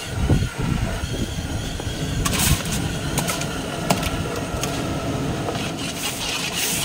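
Steady low rumble with a few light clicks and scrapes, as ginger-garlic paste is stirred into hot oil in a pan.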